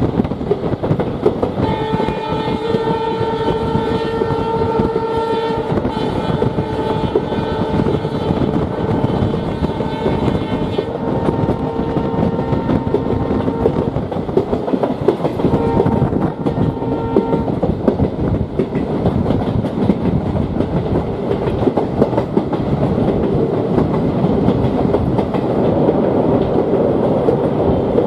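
Train running on the rails with a continuous rumble, its horn sounding a long blast and then a few shorter ones over the first two-thirds. The rumble grows louder near the end.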